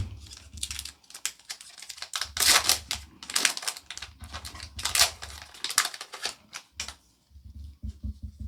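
Pokémon trading cards being handled and flipped through by hand: a run of quick clicks and swishes as card slides over card, with low handling bumps, going quieter after about seven seconds.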